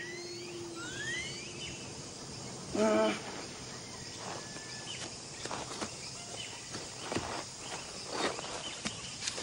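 Jungle ambience with a few rising bird chirps, then a man's short strained grunt about three seconds in. After it come scattered small rustles and scrapes of a hand clawing at dirt and leaves.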